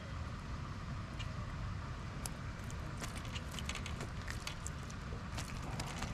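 A trout flopping in a rubber landing net with the treble-hooked lure still in it: scattered light taps and splashes, thickest from about three seconds in, over a steady low rumble.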